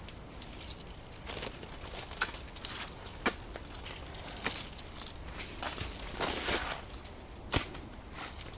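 Irregular crunching and crackling of touring skis moving through snow and undergrowth, with one sharper snap about seven and a half seconds in.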